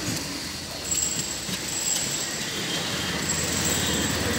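Steady street traffic noise: a low rumble of passing vehicles with a faint thin high whine that comes and goes.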